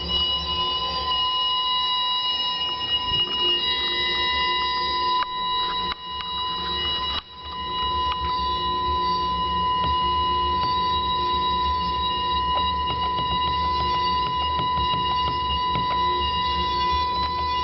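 Baxi Eco5 Compact 24F gas boiler giving off a loud, steady whistle with higher overtones over a low hum, dipping briefly about seven seconds in. The whistle is the fault that starts once the water temperature reaches about 73–75 °C, seemingly from the bottom of the boiler.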